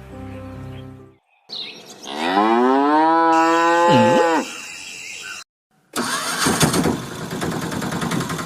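A cow mooing once in a long, drawn-out call that rises and then holds, followed a couple of seconds later by a loud, rough, noisy sound.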